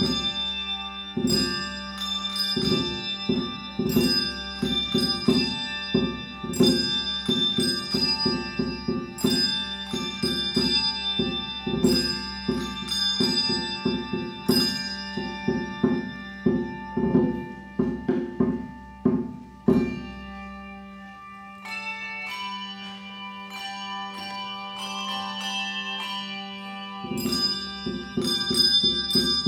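A handbell choir ringing a piece of music: bells struck in a steady rhythm, each note ringing on. About two-thirds of the way through the ringing drops to a softer, quieter passage, then the full struck rhythm returns near the end.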